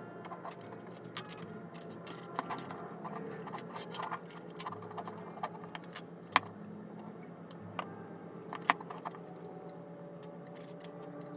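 Scattered light clicks, taps and small rattles of small hard objects being handled, over a steady low hum; two sharper clicks stand out in the middle.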